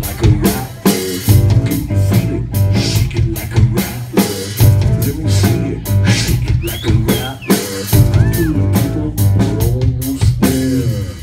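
Live rock band playing loud: a drum kit keeps a steady beat with rimshots and kick drum under electric bass, mandolin and keyboard.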